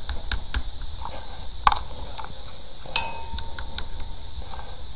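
A sewer jetter's high-pressure hose being worked into a drain pipe through its cleanout. There is a steady hiss with scattered clicks and knocks, and a short ringing clink about three seconds in.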